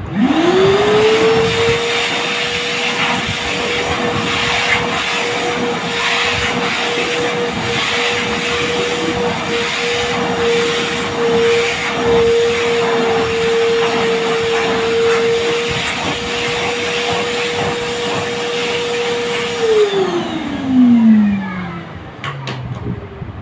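Vacuum cleaner switched on, its motor whine rising quickly to a steady pitch over the rush of suction through the hose and nozzle; near the end it is switched off and the whine falls away as the motor spins down.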